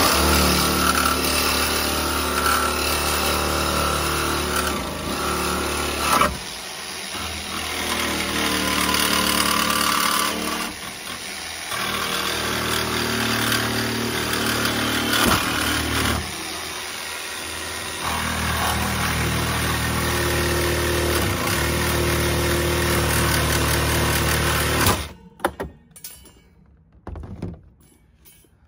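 Metabo HPT cordless jigsaw on a 36-volt battery running and cutting through a metal wire shelf. The motor note dips briefly a few times as the cut goes on, and the saw stops about 25 seconds in.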